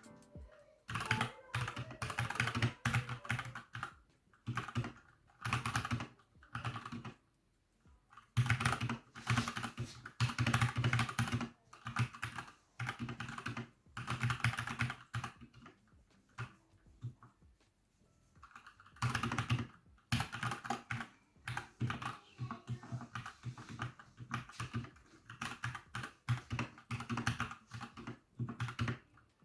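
Typing on a Keychron K8 mechanical keyboard with brown optical switches: quick runs of keystrokes in bursts, with two longer pauses, the second lasting about three seconds.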